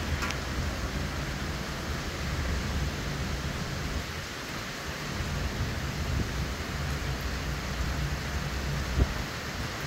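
Hurricane wind and heavy rain: a steady rushing noise over a gusting low rumble, with a short sharp thump about nine seconds in.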